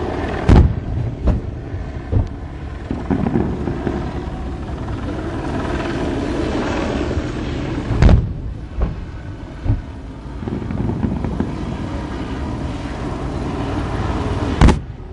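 Aerial firework shells bursting with deep bangs over a steady background rumble: three bangs in the first couple of seconds, three more around the middle, and one loud bang near the end.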